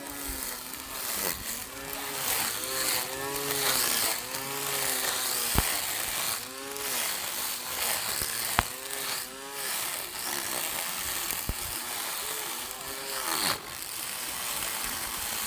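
Small electric lawn mower's motor running, its pitch rising and falling again and again as it is loaded and eased, over a steady hiss of cutting. Two sharp snaps come about a third and halfway through.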